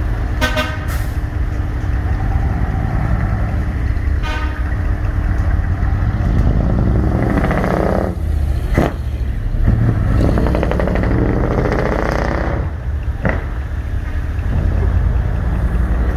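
Decorated Japanese truck's diesel engine running through a manifold-cut (maniwari) exhaust, a loud, deep rumble as it drives past, revved up and down twice. Two sharp cracks come about 9 and 13 seconds in.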